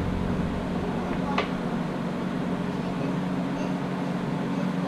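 A steady low mechanical hum with one light click about a second and a half in.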